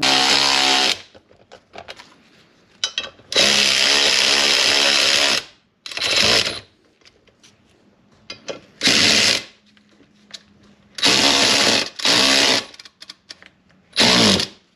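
Cordless electric ratchet (Ridgid) run in six short bursts, the longest about two seconds, as it tightens bolts on a brake rotor and hub. Its motor whines during each burst, with faint clicks from handling between the bursts.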